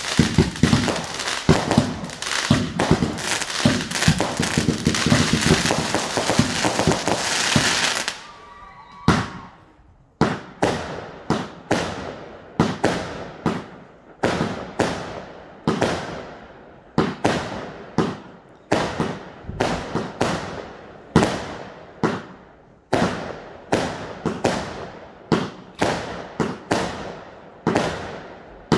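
Fireworks. For the first eight seconds or so, silver fountains give a dense, continuous crackling hiss. That stops suddenly, and after a short lull a steady run of aerial shots follows, one sharp bang after another, about one or two a second.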